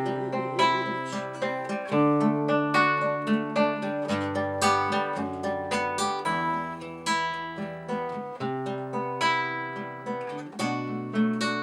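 Acoustic guitar playing an instrumental break between the verses of a song, with plucked notes over long held bass notes.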